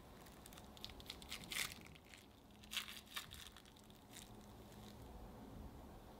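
Plastic wrap lining a square dish crinkling as a thick chocolate truffle mixture is poured in and the dish is handled. A run of soft, short crinkles, loudest in the middle, dies away after about four seconds.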